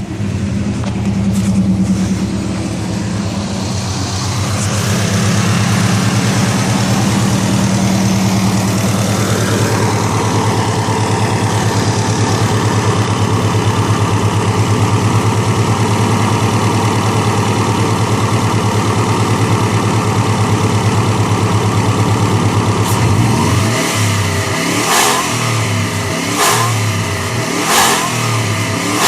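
Turbocharged Subaru flat-four engine running and pulling, with the turbo whining above the engine note. Near the end the engine note drops off and three short bursts of noise come about a second and a half apart.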